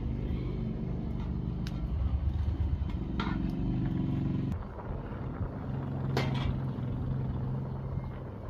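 Wood fire burning under a large aluminium pot of boiling pasta water, a steady low rumble, with a few sharp clicks of utensils.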